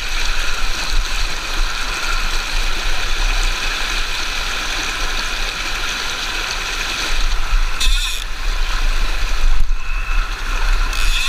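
Fast-flowing river water rushing and gurgling around a wading angler, a steady loud noise with a low rumble underneath.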